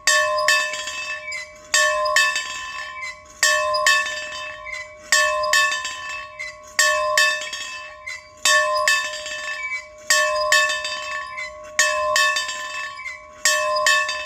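A bell rung steadily back and forth, its strokes coming in quick pairs about every second and a half to two seconds, each stroke ringing on with a clear tone.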